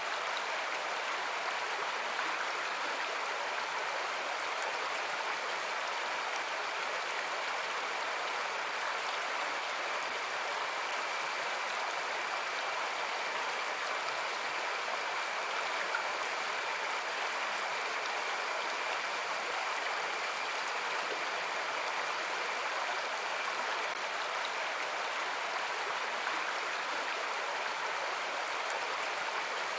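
Stream water flowing, a steady even rushing with no let-up.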